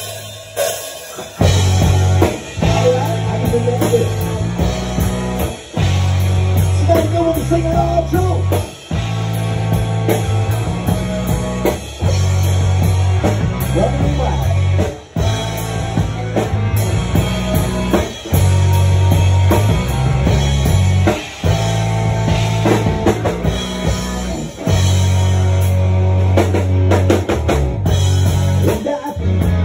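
Live rock band playing: drum kit and guitar over a heavy, repeating bass line, kicking in about a second and a half in.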